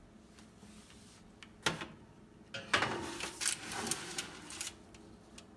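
Metal knocking and rattling from handling at an open oven: one sharp knock about a second and a half in, then about two seconds of clattering.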